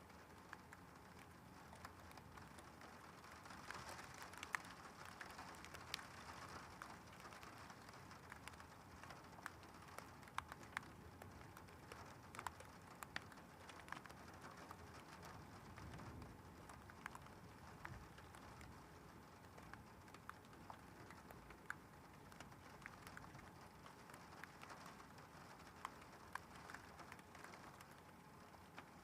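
Faint steady rain, with scattered sharp ticks of drops striking.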